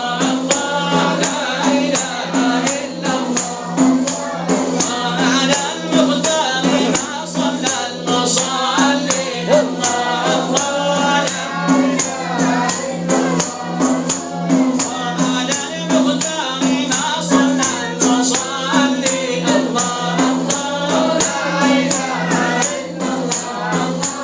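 Group of voices singing a Sufi devotional chant over a steady, even beat of hand drums with jingles.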